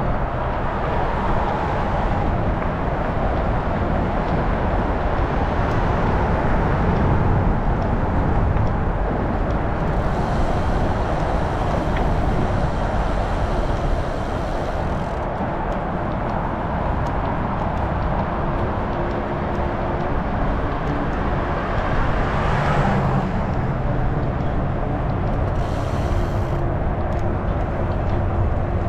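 Steady wind and road noise on the microphone of a moving bicycle, with motor vehicles passing several times, most clearly about ten seconds in and again about twenty-two seconds in.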